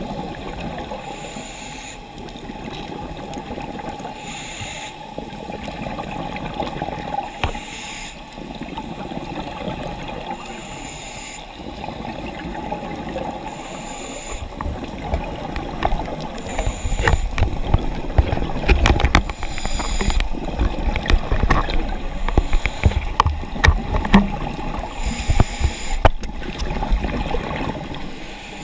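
Underwater sound of a scuba diver breathing through a regulator, a hiss-and-bubble burst recurring about every three seconds. From about halfway a louder low rumble with scattered clicks and knocks joins in.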